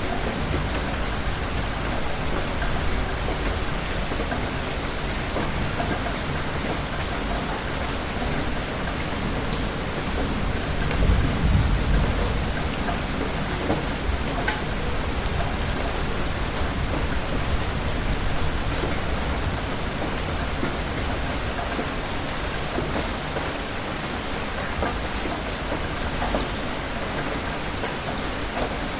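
Steady rain falling, with a low rumble of thunder swelling about eleven seconds in.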